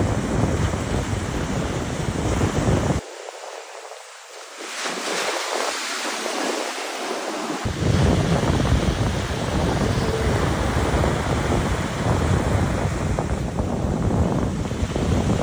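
Ocean waves washing on the shore, with wind buffeting the microphone in a low rumble. The rumble cuts out suddenly about three seconds in and comes back a few seconds later.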